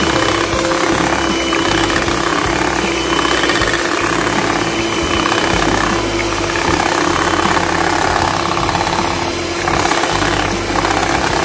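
Electric hand mixer running steadily, its beaters whipping a cream and mango mixture in a glass bowl: a constant motor hum over the churning of the mix.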